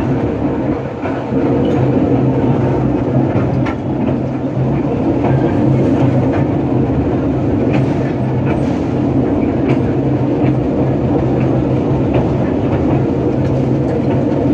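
Narrow-gauge train heard from the cab while moving: a steady engine drone with scattered clicks of the wheels over the track.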